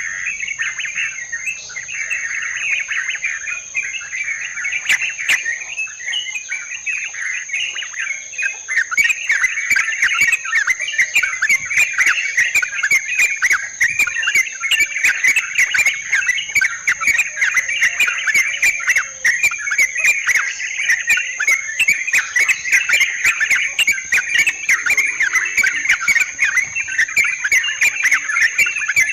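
Yellow-vented bulbuls (trucukan) chattering in a dense, continuous chorus, used as a lure recording. A steady high-pitched whine runs underneath, and about nine seconds in the calling grows louder, with rapid sharp clicks mixed in.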